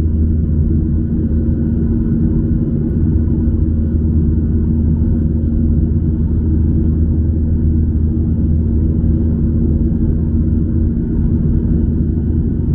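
Steady jet-engine and airflow drone heard inside an airliner cabin during the climb after takeoff, a low rumble with a constant hum.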